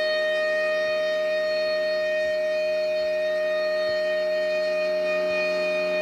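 Federal Signal Thunderbolt 1000 outdoor warning siren sounding during a test, holding one steady tone with no rise or fall in pitch.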